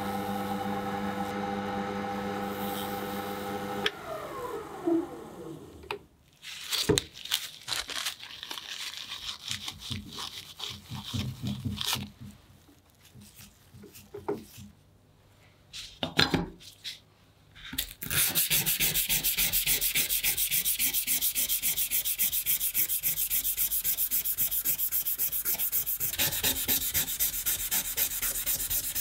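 A small electric motor hums steadily, then spins down about four seconds in. A few scattered knocks and clatter of parts being handled follow. From about eighteen seconds in comes steady, rapid rhythmic sanding, the loudest part.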